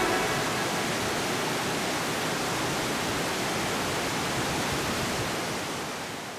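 Steady rush of whitewater rapids, fading out near the end.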